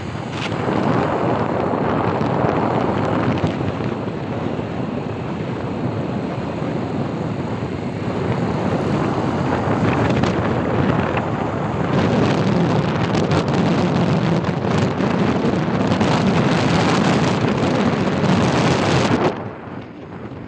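Wind buffeting a phone's microphone: a rough, gusty rumble that grows stronger in the second half and drops off suddenly near the end.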